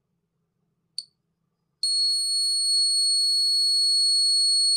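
Piezo buzzer of a 9-volt-battery flood detector gives one short high chirp about a second in. Just before two seconds in it starts a steady, high-pitched continuous alarm tone that holds: the alarm set off by water bridging its copper-wire probes.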